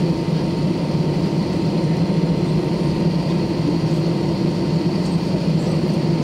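Steady low cabin hum with a faint constant whine inside an Airbus A320 parked at the gate, from the aircraft's systems running.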